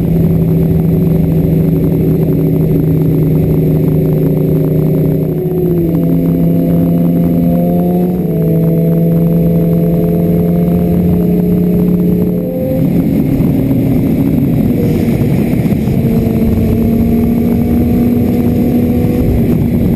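Sport motorcycle engine running at highway speed under heavy wind rush on a helmet-mounted camera, the engine note changing pitch a few times with short dips in level.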